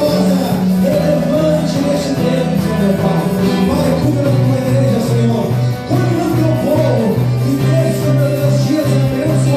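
Band music with a steady bass line, guitar and light percussion; the bass shifts to a lower note about four seconds in.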